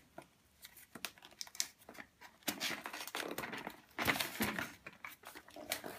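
Cardboard box being worked open by hand: a run of short, irregular scrapes, rustles and tearing sounds of cardboard, loudest a little past halfway.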